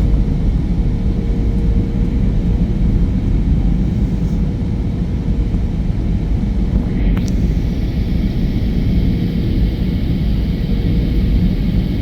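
Airbus A320 airliner on its landing approach: a steady low rumble of engines and airflow. About seven seconds in there is a click, and a higher steady whine joins the rumble.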